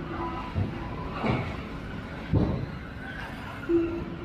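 Electric 4WD RC buggies with 13.5-turn brushless motors racing on a carpet track in a large echoing hall: three dull thumps in the first few seconds, as cars land and knock on the track, over a steady background. A short, steady tone sounds briefly near the start and again near the end.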